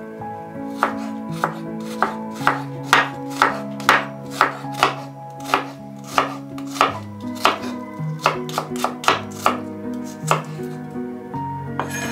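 Chef's knife slicing through a red onion, each cut ending in a knock of the blade on a bamboo cutting board, about two cuts a second with a short pause near the end. Soft background music with held notes underneath.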